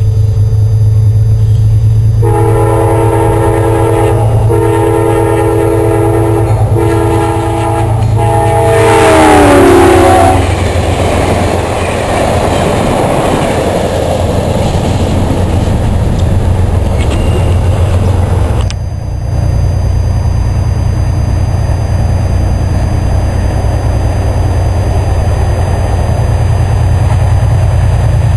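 An Amtrak passenger locomotive's horn sounds several chord blasts, and the long last blast drops in pitch as the locomotive passes. The rumble and clatter of the passenger cars rolling by follows. About two-thirds of the way through, the sound cuts abruptly to a steadier low rumble.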